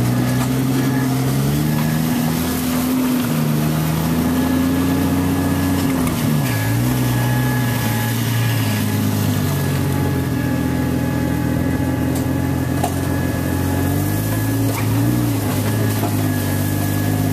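Jeep Wrangler TJ engine running steadily at low trail speed, heard from inside the cab. Its drone rises and dips a few times as the throttle changes, with a brief dip about six seconds in and another near the end.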